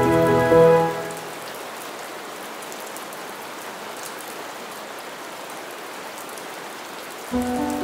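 A small stick fire burning under a miniature clay cooking pot: a steady hiss with faint crackles. Background music stops about a second in and comes back near the end.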